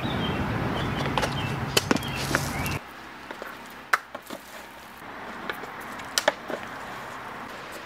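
Water balloons bursting with sharp slaps: one about four seconds in and two close together a couple of seconds later. Before them, a loud rushing noise cuts off abruptly about three seconds in.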